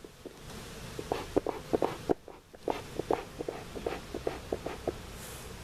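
Hive tool scraping and tapping on wooden hive frames, a quick run of short, irregular strokes with a brief pause about two seconds in.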